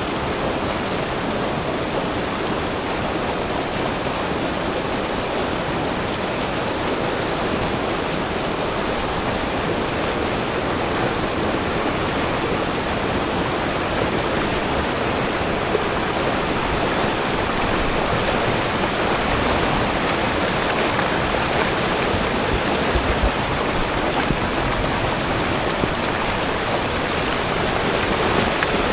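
Snowmelt-fed mountain river rushing through whitewater rapids over boulders: a steady, unbroken wash of fast-moving water.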